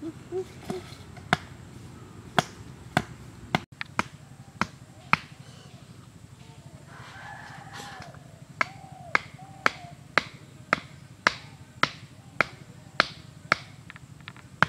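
Wooden stakes being hammered into the ground with sharp, regular knocks of a hand-held striker on wood, about two a second, with a pause in the middle. During the pause a rooster crows in the background.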